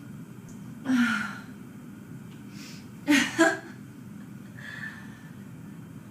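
A person gasping and sighing during a sneezing fit. There is one voiced gasp with falling pitch about a second in, then two sharp gasps in quick succession around three seconds in, and a faint breath after that.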